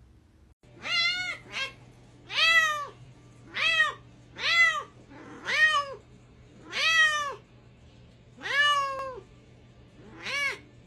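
Domestic cat meowing over and over, about nine meows in a row, each rising and then falling in pitch.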